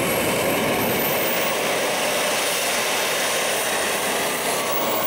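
Kerosene-fuelled turbine engine of an RC model jet running: a loud, steady jet rush with a thin high whine that climbs in pitch over the first couple of seconds and eases slightly near the end.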